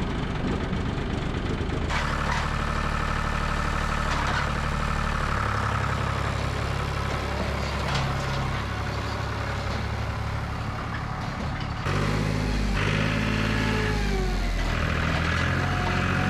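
Engine idling steadily, running again after its flat battery was charged. Its pitch shifts a couple of times.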